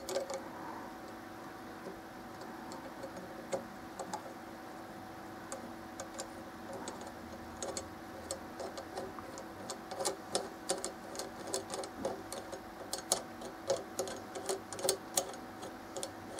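Small irregular clicks and ticks of a metal thumb screw being turned by hand, threading through a steel bracket bar into a phone holder's mount; the clicks are sparse at first and come thicker in the second half. A faint steady hum runs underneath.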